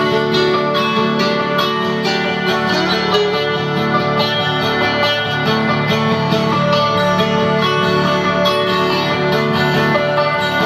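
Guitar music played through a home-built transistor audio amplifier and loudspeaker under test, which is running in class A mode.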